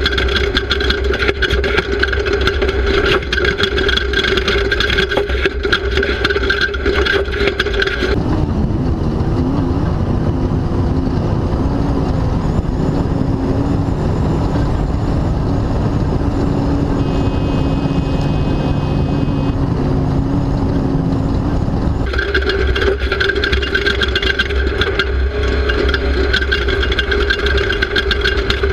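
Class 2000 off-road race vehicle's engine running at speed, loud and steady on an onboard camera. About eight seconds in the sound switches abruptly to a lower, more varying engine note, then switches back about 22 seconds in.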